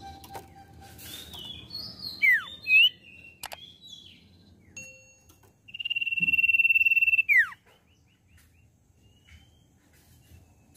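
Common iora calling: a few short whistled notes sliding up and down, then one long, steady whistle of about a second and a half that ends in a quick falling note.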